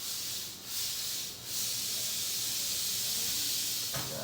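A hiss, in a few short pulses during the first second and a half, then steady.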